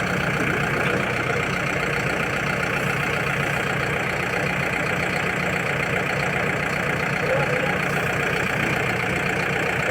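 Manitou backhoe loader's diesel engine running steadily at an even pitch.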